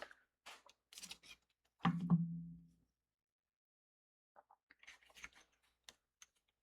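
Paper craft handling: light rustles and taps of cardstock as the bridge piece of a spanner card is glued down, with a short low hum about two seconds in and faint crackles near the end.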